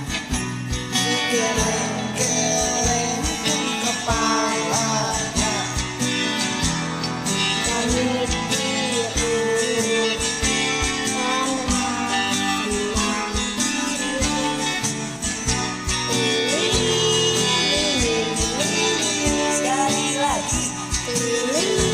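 Instrumental karaoke backing music with a steady beat.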